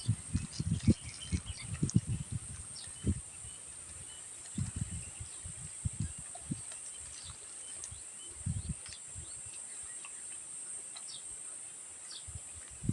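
Close-up chewing and mouth sounds of someone eating fast food, coming in irregular clusters of soft low thuds with faint wet clicks, pausing between bites.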